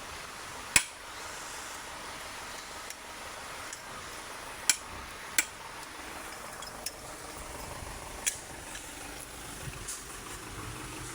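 Sharp metal clinks and taps of hand tools, about five spread over several seconds, as a differential is taken apart, over a steady hiss of rain.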